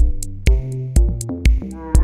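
Background electronic music with a steady beat: a kick drum about twice a second, hi-hat ticks between the kicks, and synth notes.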